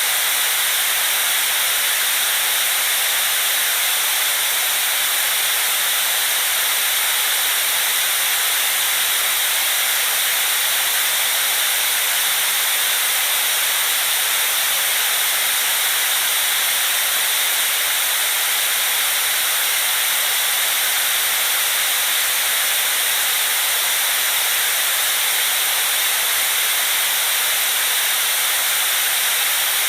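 Steady white noise: an even, unchanging hiss, strongest in the upper range with little low end.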